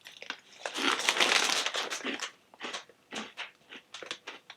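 Crinkly plastic snack bag being handled, a dense burst of crinkling in the first half, then scattered short crackles.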